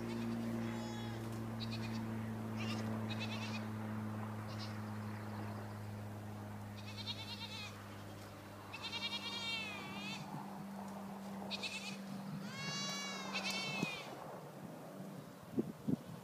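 Goats bleating, several calls in a row with wavering pitch, the longest ones about halfway through and near the end. A steady low hum runs underneath and fades out near the end.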